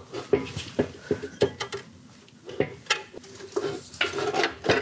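Hand tools and metal parts clinking and knocking in short, irregular strikes, quieter for a moment in the middle and busier near the end.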